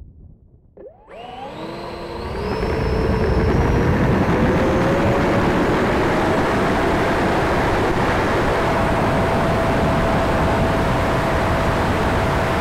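E-flite Viper's 70 mm electric ducted fan spooling up about a second in, a whine climbing quickly in pitch to takeoff power, then a loud, steady rush with a high whine through the takeoff run and climb-out.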